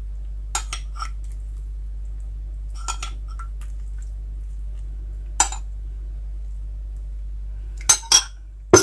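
A metal spoon clinking against a ceramic bowl and the pot as melted butter is spooned over rice. The light clinks are scattered, with three louder ones close together near the end, over a steady low hum.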